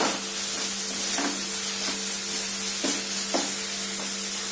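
Finely chopped onions with green chillies and curry leaves sizzling in oil in a metal kadai as they fry soft. A wooden spatula stirs them, scraping and tapping the pan every second or so, over a steady low hum.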